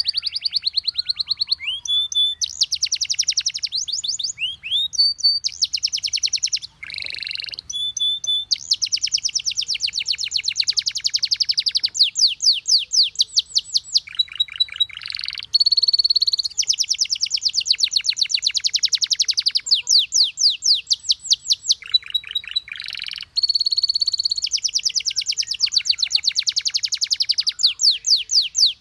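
Canary singing: long, fast trills of rapidly repeated notes, broken now and then by short whistled notes and brief pauses.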